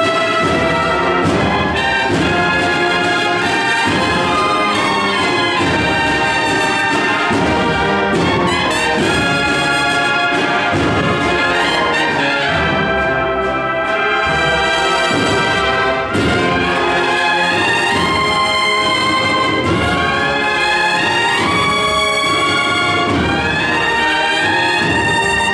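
Banda de cornetas y tambores, a Spanish cornet-and-drum band, playing a march: massed cornets carrying the melody in several parts over a steady beat of drums. Loud and continuous.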